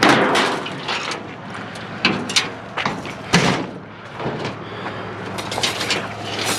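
Aluminum scrap being pulled off a trailer, clanking and banging in an irregular series of sharp knocks. The loudest bangs come at the start and about three and a half seconds in.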